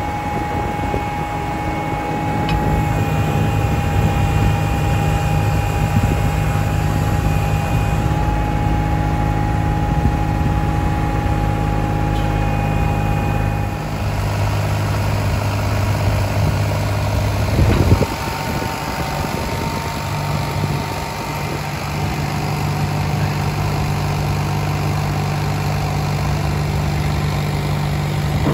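Truck engine running steadily to power a Hiab 377 loader crane, with a thin, steady whine from the crane's hydraulics over it as the boom moves. A single loud clunk comes about 18 seconds in.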